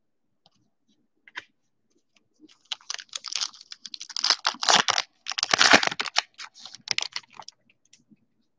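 A foil trading-card pack of Stadium Chrome being torn open and crinkled by hand. It makes a dense run of crackling rustles that starts about two and a half seconds in and lasts about five seconds.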